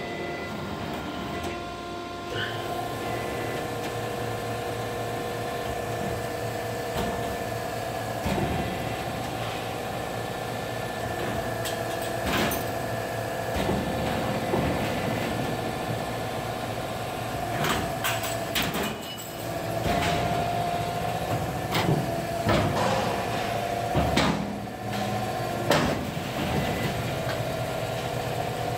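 Sheet-metal air duct production line running: a steady machine hum and whine, with occasional sharp metallic clanks, more frequent in the second half.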